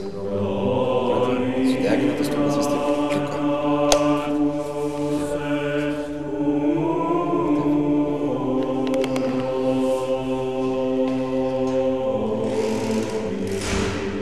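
Choral chant: voices singing long held notes that shift pitch about halfway through, with a sharp click about four seconds in.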